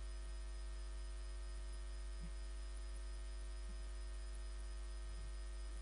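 Steady electrical mains hum: a low buzz with a ladder of evenly spaced overtones, unchanging throughout.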